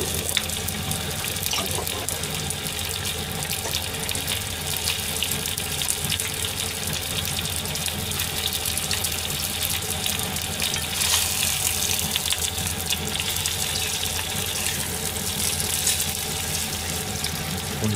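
Chicken wings sizzling steadily in a frying pan, over a low steady hum.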